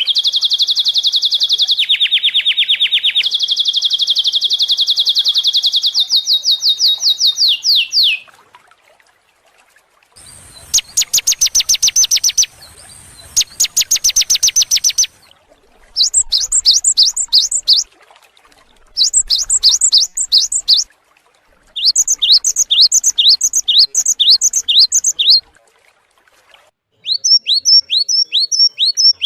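Recorded songbird calls, a mix of species: a fast high trill that steps down and back up in pitch, two bursts of fast buzzy rattling, then four runs of quick rising chirps, about five a second, with short pauses between phrases.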